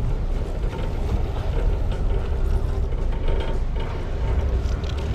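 River tourist boat's engine running steadily underway: a loud, continuous low rumble.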